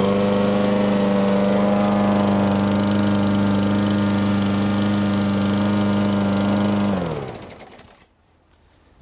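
Craftsman 21-inch push mower's flathead engine running at a steady speed, then shut off about seven seconds in, its pitch falling as it spins down to a stop.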